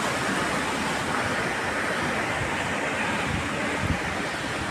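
Steady wind rushing over a handheld phone's microphone, an even noise with no pitch, broken by a brief low bump near the end.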